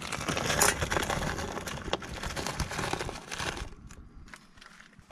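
Frozen green beans added to a stainless steel dog bowl of dry kibble: a dense crinkling and clattering that stops about three and a half seconds in, followed by a few small clicks.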